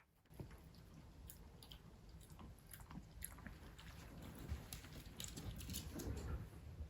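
A pet chewing food close to the microphone: a run of irregular small crunching and chewing clicks.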